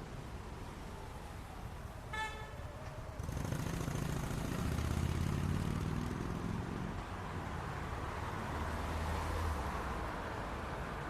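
City street traffic: a short car horn toot about two seconds in, then the traffic noise jumps louder with the low rumble of a vehicle engine passing, easing off and swelling again near the end.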